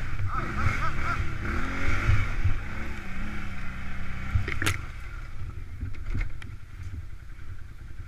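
Quad bike's engine running as it rides over a rough trail, its pitch wavering up and down over the first few seconds. A sharp knock about four and a half seconds in.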